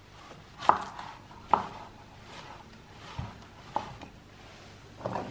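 Chef's knife chopping a courgette on a wooden cutting board: about five separate sharp knocks of the blade hitting the board, unevenly spaced, the loudest two in the first two seconds.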